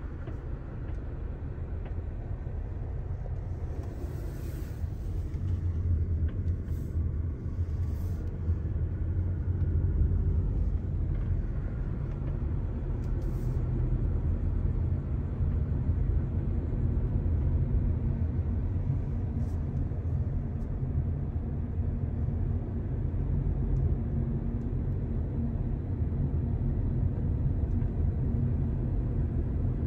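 Road and engine noise heard from inside a moving car: a steady low rumble that grows louder about six seconds in and then holds.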